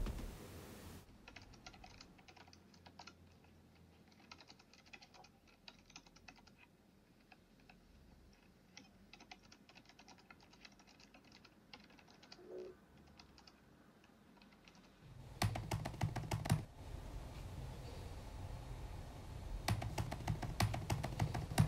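Typing on a laptop keyboard: soft, irregular key clicks, faint at first, then louder keystrokes over a steady low background hum from about two-thirds of the way in.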